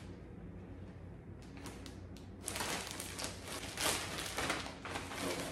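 Plastic packaging bags rustling and crinkling as they are handled and pulled open, starting about two and a half seconds in after a quieter start.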